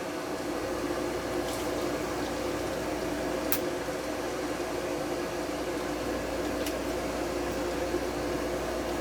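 Pool filter pump running with a steady hum, with a few faint ticks.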